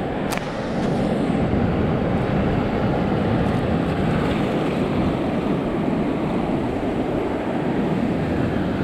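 Steady rush of wind on the microphone and surf washing on the reef, with one sharp click about a third of a second in.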